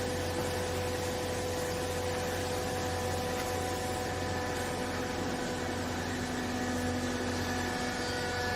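Clothes baler machine's motor running with a steady hum and several fixed tones. A second, lower tone comes in about halfway through and stops shortly before the end.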